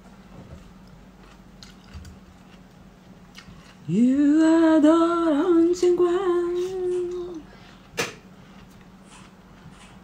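A woman humming one held note, sliding up into it about four seconds in and lasting about three and a half seconds, with small wobbles in pitch. A single sharp click comes about a second after she stops.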